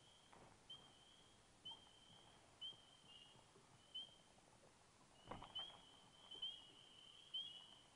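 Faint, short high-pitched chirps, about one a second, that thicken into several overlapping callers after about five seconds, with one soft knock around then.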